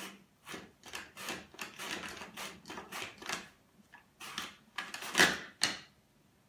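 A radish being sliced on a red plastic handheld mandoline: quick, repeated scraping strokes across the blade, about three a second. The loudest two come just after five seconds in, then the slicing stops.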